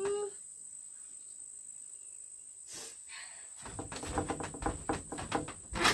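A steady high insect trill runs under the whole stretch, quiet at first. From about three and a half seconds in, a run of irregular knocks and rustles comes from someone moving on a wooden plank floor, with a sharp click near the end.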